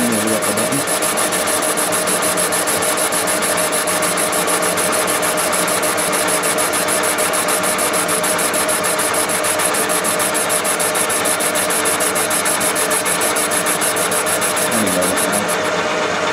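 Thompson boring bar running under power, boring out an engine cylinder: a steady machine drone with a fast, even high ticking that stops shortly before the end.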